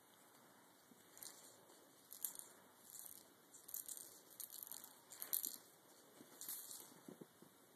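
A kitten's claws scratching and scrabbling at a large knitted toy mouse as it bites and kicks it: about half a dozen short, hissy, scratchy bursts.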